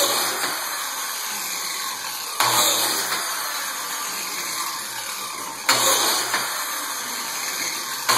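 Biscuit joiner (plate joiner) running and cutting slots for wooden biscuits into the edges of window-header boards, with a fresh surge each time it plunges into the wood, about every three seconds.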